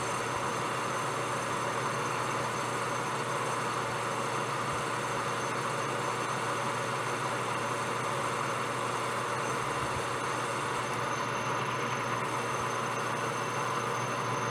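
Metal lathe running steadily while a boring bar takes the last pass inside a brass bushing.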